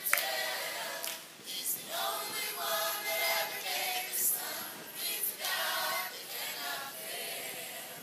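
Gospel group of several voices singing a hymn together in harmony, with a single hand clap at the start.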